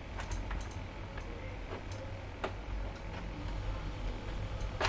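Scattered light clicks and ticks from small tools and a circuit board being handled on a workbench, with one sharper click near the end, over a low steady hum.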